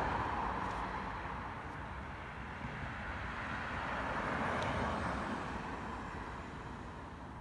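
Passing road traffic: the tyre and engine noise of one car fades away at the start, and another car swells up, passes about four to five seconds in, and fades out.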